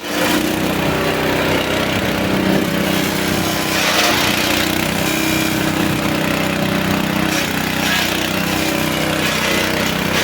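Grass and fodder chopper machine running steadily, its motor drone under a rough chopping noise that swells about four seconds in and again around seven seconds.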